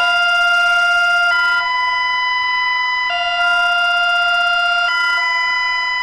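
Bulgarian emergency alert system alarm: a steady electronic tone that alternates between a lower and a higher pitch, switching about every two seconds.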